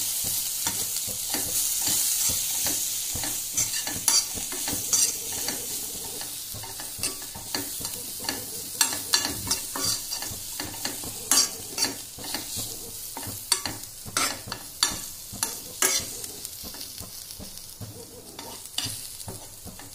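Chopped green chillies sizzling in oil in a nonstick kadai as a steel spoon stirs them in with dry roasted gram flour, the spoon clicking and scraping against the pan many times. The sizzle is loudest at first and fades gradually.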